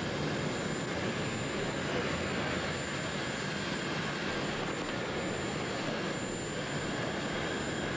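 Steady aircraft turbine engine noise, an even continuous rush that holds the same level throughout.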